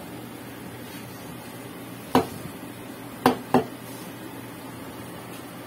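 Three sharp clinks of glassware and metal at the espresso machine, as the espresso glass and milk pitcher are handled: one about two seconds in, then two close together about a second later. A low steady hum runs underneath.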